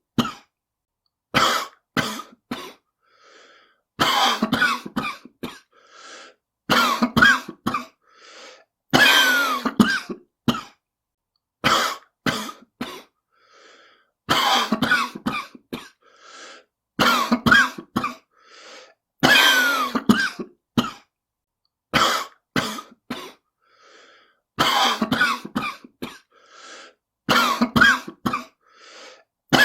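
A person's smoker's cough: repeated fits of several coughs each, the fits coming every two to three seconds with short quiet gaps between.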